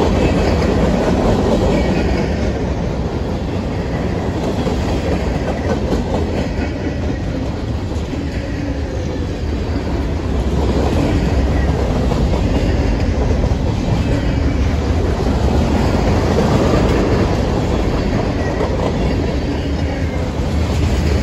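Freight cars, mostly covered hoppers, rolling past close by at speed: a steady, loud rumble of steel wheels running on the rails.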